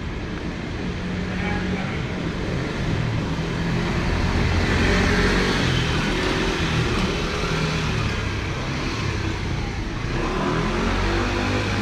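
A motor vehicle passing along the street, growing loudest about five seconds in.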